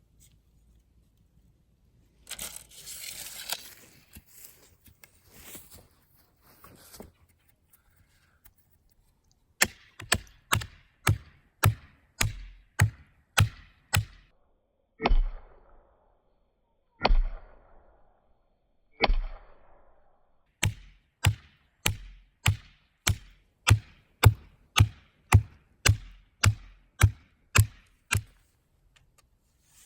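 Post hole being dug by hand: a hand digging tool strikes the ground over and over, in two runs of quick sharp strikes about two a second, broken by three heavier thuds each followed by a short scrape of soil.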